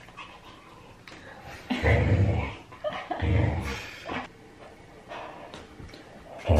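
Pit bull puppy vocalizing: two short, deep, throaty sounds about two and three seconds in, and a third starting near the end.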